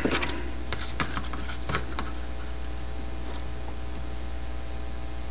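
A few light clicks and taps from thin 24-gauge wire being handled on a cutting mat, most of them in the first two seconds, over a steady low hum.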